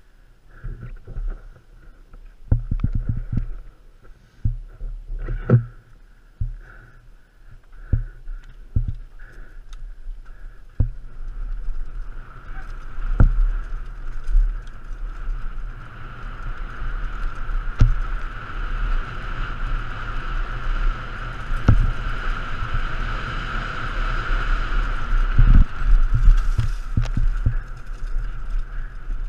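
Mountain bike descending a rough dirt singletrack: the chain and frame rattle, with sharp knocks over bumps and roots. A steady high whine from the bike comes and goes at first, then holds from about twelve seconds in, growing louder before it fades near the end.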